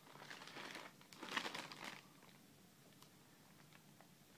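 Faint crinkling of the clear plastic bags around toy brick-set packs as they are handled, loudest about a second and a half in.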